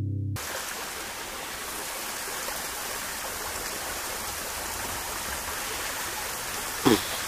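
Steady rushing of flowing water, as from a nearby creek. Near the end comes one short, loud voice-like sound that drops in pitch.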